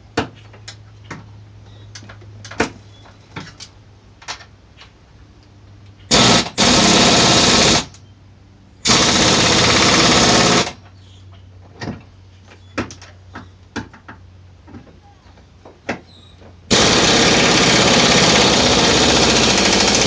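Pneumatic impact wrench hammering on the vise's mounting nuts in loud bursts: two short ones about six seconds in, one of about two seconds shortly after, and a long run of several seconds near the end, tightening the bolts down. Before the bursts come scattered metal clicks and knocks of sockets and hardware being handled.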